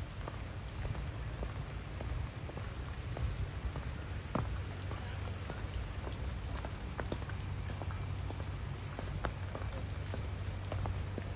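Steady rain falling, with many scattered drops ticking sharply, over a steady low rumble.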